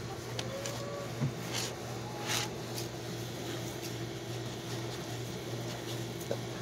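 Steady low machine hum, with a few short rustling scrapes in the first couple of seconds.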